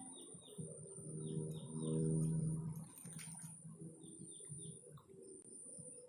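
Small birds chirping: short falling chirps repeated in quick runs of two or three, over a steady high-pitched whine. A low steady hum swells up and is loudest about two seconds in, then fades.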